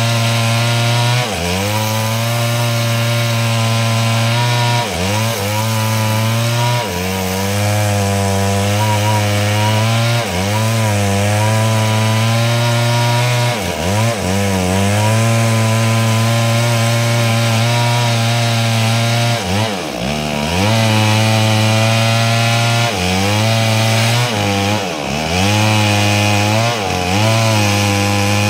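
Stihl two-stroke chainsaw running hard, ripping lengthwise through wood to cut planks. The engine note dips sharply and recovers every few seconds as the chain loads up in the cut.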